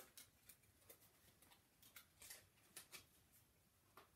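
Faint clicks and rustles of stiff card pages being turned in a spiral-bound flip book.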